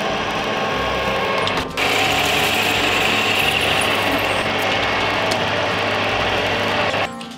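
Metal lathe cutting an aluminium bar: the spindle runs and the cutting tool makes a steady, dense hiss as chips come off. The sound jumps louder about two seconds in and drops off near the end.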